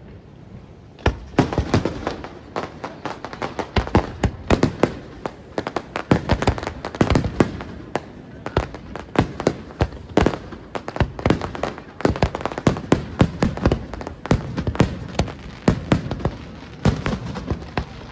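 Fireworks display: after about a second of lull, a dense, irregular string of bangs from shells and salvos bursting, several a second.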